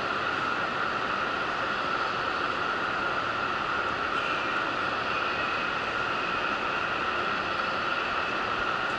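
Steady railway station platform ambience: an even hiss with a constant high-pitched hum running under it, and no distinct events.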